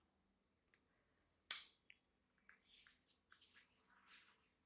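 Near silence with a faint steady hiss, broken by a single short click about a second and a half in and a few fainter ticks after it.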